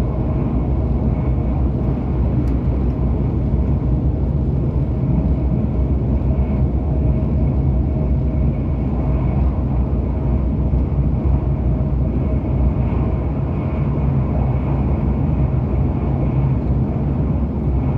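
An ETS electric train running at speed, heard from inside the carriage: a steady low rumble with a faint, even hum above it.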